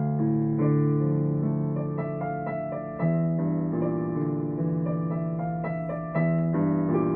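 Solo piano playing a slow piece: sustained low chords, a new one struck about every three seconds, with single melody notes moving above them.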